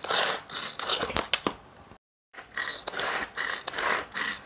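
Hand-operated vegetable chopper worked in quick repeated strokes, a rasping whirr about two or three times a second, as its blades chop onion, green chillies, garlic and ginger. The strokes break off for a moment about two seconds in, then carry on.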